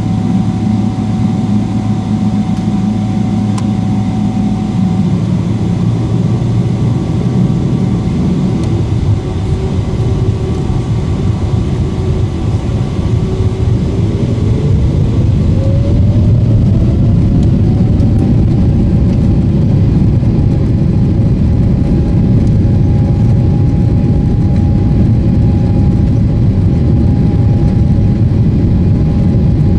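Boeing 777-300ER's GE90-115B engines heard from inside the cabin, spooling up for take-off: a steady whine, then about halfway through a rising whine as thrust builds to take-off power, with the rumble growing louder as the aircraft accelerates down the runway.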